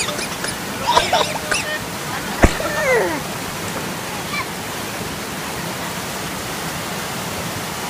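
Steady rush of a waterfall and stream running over rocks. Brief voices break in during the first three seconds, with a sharp click about two and a half seconds in.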